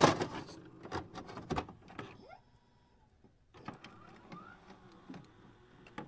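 Glitchy electronic sound effects for a loading-style logo animation: a loud click, then a quick run of sharp digital clicks and crackles, a brief silence, and fainter clicks with a short rising chirp.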